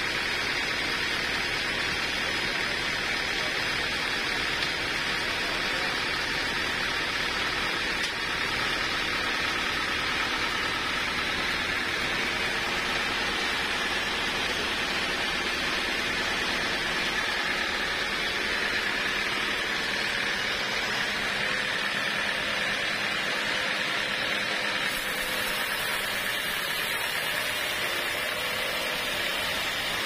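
Band sawmill running steadily, its blade sawing through a teak log.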